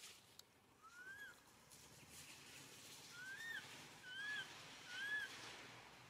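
Baby monkey cooing: four short whistle-like calls that rise and then fall, the later three coming about a second apart, over a soft rustling noise.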